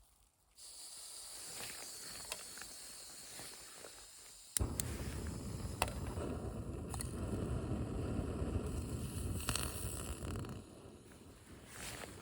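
Cooking on a portable camping stove: a soft hiss, then a louder steady rush starting suddenly about four and a half seconds in and dropping away near the end, with a few sharp clicks.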